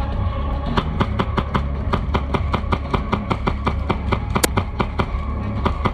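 Airsoft guns firing: a fast, irregular run of sharp cracks and pops, several a second, over a steady low drone.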